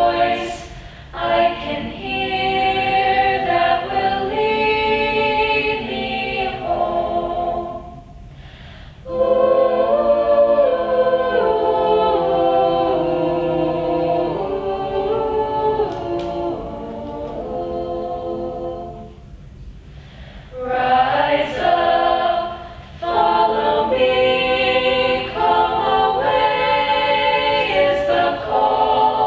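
Mixed-voice school choir singing sustained chords. The phrases break off briefly twice, at about 8 seconds and about 20 seconds, before the voices come back in fuller.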